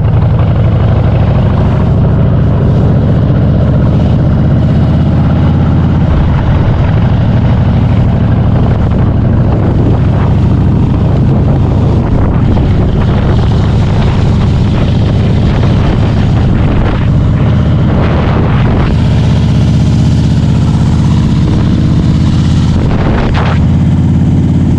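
Harley-Davidson Softail Standard's V-twin engine running steadily under way.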